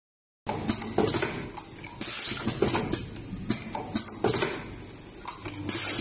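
Irregular clicks and knocks with short hissing bursts from an automatic USB cable soldering machine as cables are loaded into its fixture. A steady hum comes in about five and a half seconds in.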